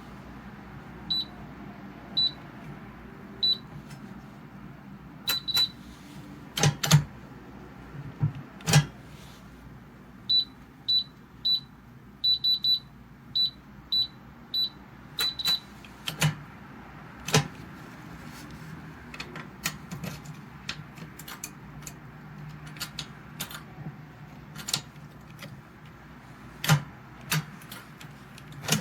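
Digital keypad safe beeping as its buttons are pressed: short single high beeps about a second apart, then a quicker run of beeps in the middle, among sharp clicks and knocks from handling the steel safe.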